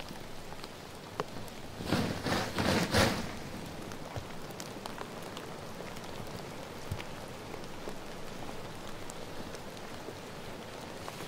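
Steady rain falling in a forest, an even hiss with scattered drop ticks. About two seconds in, a second or so of loud rustling bursts breaks over the rain.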